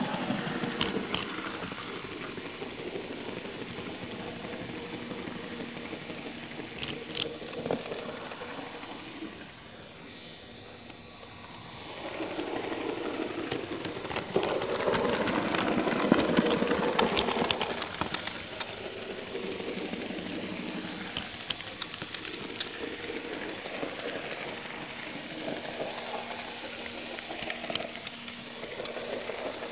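HO-scale model train running along the track, the carrying wagon's wheels rolling with occasional sharp clicks, over the background noise of a large hall. The sound dips for a few seconds and then gets louder for several seconds a little before halfway.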